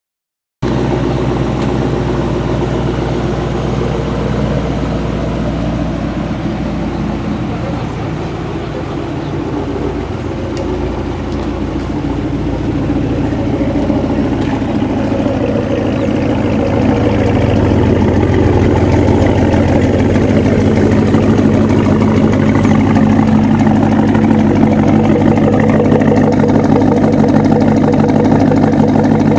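Chevrolet V8 engine idling steadily, growing a little louder past the middle.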